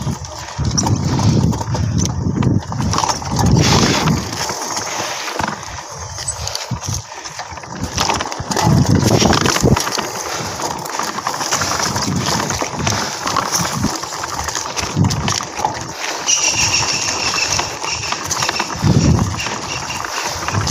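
Mountain bike rattling and thumping as it rolls over a bumpy grass-and-dirt trail, with a run of high squeaks about sixteen seconds in.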